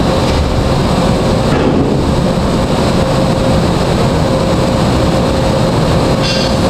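Loud, steady mechanical drone with a constant hum running underneath, the shop's background machinery noise.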